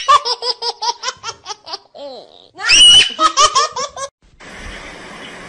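A girl laughing hard and high-pitched: a quick run of ha-ha bursts, a shrill squeal, then another run, breaking off about four seconds in. A faint steady hiss follows.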